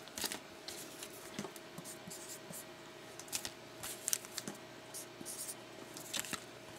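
Marker pen writing numbers on foil trading-card packs, in quiet short scratchy strokes, with the crinkle of the foil wrappers as packs are handled.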